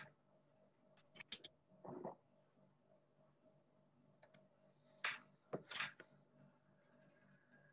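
Scattered faint clicks at a computer, a few in quick succession about a second in and again around four to six seconds in, with one duller tap about two seconds in, over a low steady electrical hum.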